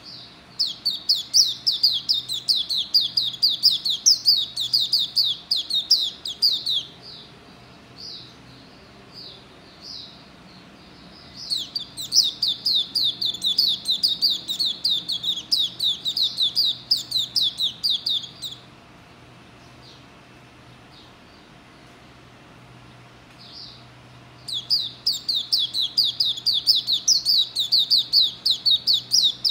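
Nine-month-old white-eye (pleci, Zosterops auriventer) singing in three long bouts of rapid, quickly repeated short high notes, each bout lasting about six to seven seconds, with only a few stray notes in the pauses between. It is a young bird's song, still not smooth.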